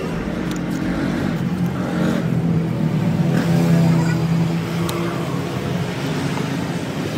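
A motor vehicle engine running, its hum growing louder to a peak about four seconds in and then easing off.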